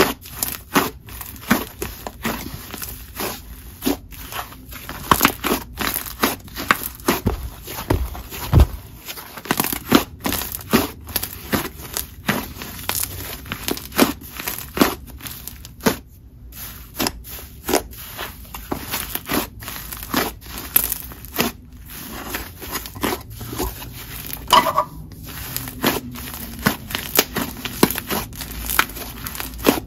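Cloud cream and icy slime with a fluffy snow-butter texture being kneaded, stretched and pressed by hand. It gives off a constant irregular stream of small sizzles and pops, several a second, as air pockets in the inflated slime burst. There is a low thump about eight seconds in.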